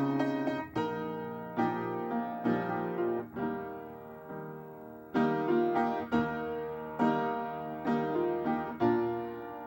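Piano playing a slow hymn introduction: chords struck about once a second, each ringing and fading, with a softer passage midway.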